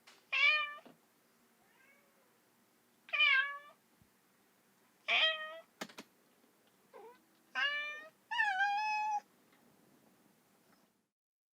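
Domestic cat meowing: five separate meows a second or two apart, plus a faint softer one, the last meow drawn out the longest. A short click comes about six seconds in.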